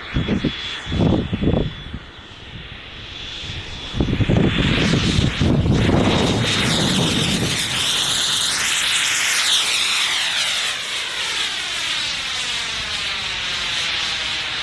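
JetCat P20SX kerosene micro turbine in a foam MB339 model jet, a steady high whine that steps up in pitch about four and a half seconds in. It grows louder as the jet makes a low, fast pass, with gusts buffeting the microphone early on and during the approach.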